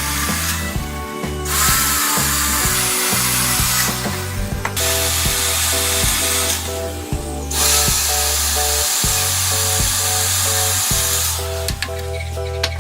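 A power tool working wood in stretches of a few seconds, stopping briefly between them, over background music.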